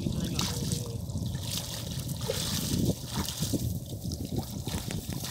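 Water trickling and splashing off a fine-mesh net as it is lifted out of shallow water and dragged up the bank, with scattered small splashes and a steady low rumble of wind on the microphone.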